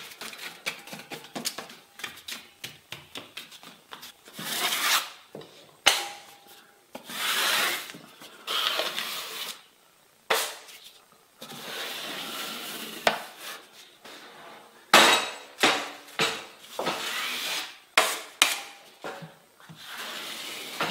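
Steel drywall knife scraping setting-type joint compound (hot mud) onto the paper tape of an inside corner and off a hawk: repeated rough strokes, each about a second long, with a few sharp taps between them.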